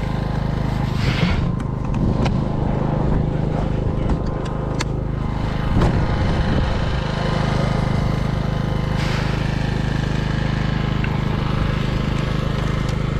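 An engine running steadily at idle, with a few clicks and knocks of Stinger missile carry cases being handled.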